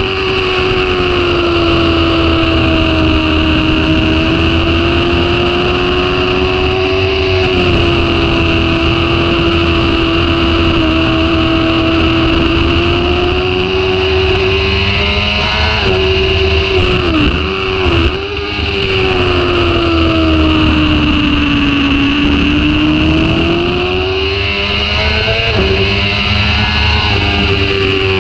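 Sport motorcycle engine running hard at high revs, heard from on the bike over heavy wind rush. Its pitch sags and climbs slowly through the corners, with quick drops and recoveries about two-thirds of the way through and again near the end as the throttle is shut and gears change.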